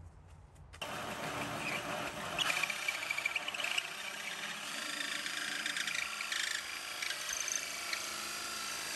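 Makita cordless drill turning a 2 3/8-inch hole saw through a cedar plank: a steady cutting rasp that starts about a second in, with a stretch of high squeaking a couple of seconds later.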